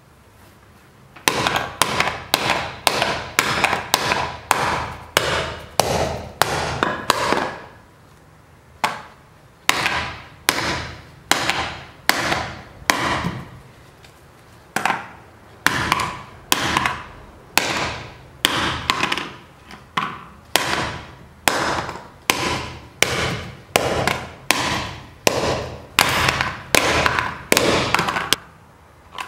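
Hammer blows striking a hard drive lying on a stone paver, about two a second, each with a short ringing tail. The blows come in three runs, broken by short pauses about a quarter and about halfway through.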